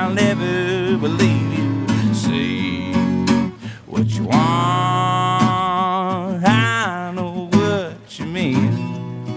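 Live acoustic guitar strumming chords, with a melody line above it that glides and bends in pitch.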